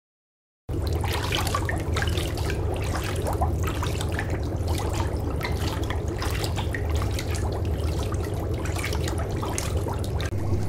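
Bath water splashing and trickling as hands scoop it over and rub a poodle's wet coat, with many small irregular splashes over a steady low hum. It starts suddenly less than a second in.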